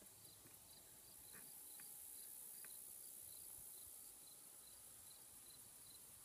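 Faint insect chirping: short high chirps repeating evenly at about three a second, over a low steady hiss.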